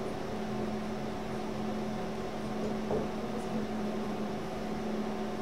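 Steady machine hum of room tone, with a few low tones held throughout.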